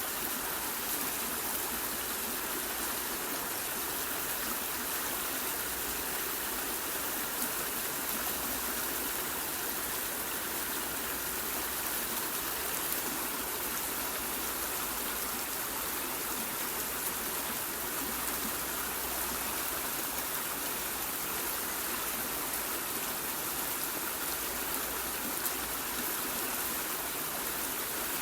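Waterfall and stream water rushing steadily, an even hiss with small splashes.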